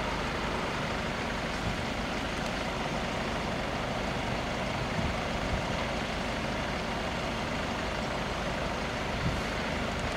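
Steady rumble of road vehicles idling and moving.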